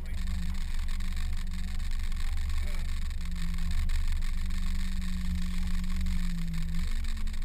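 Boat engine running steadily, a low drone with a held hum that shifts slightly in pitch about three seconds in and again near the end.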